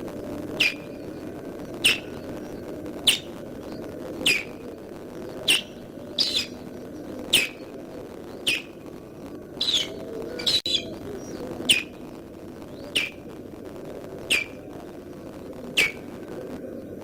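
Osprey alarm-calling at an intruder: a steady series of sharp, downward-sliding calls, about one every second and a bit, over a steady low background noise.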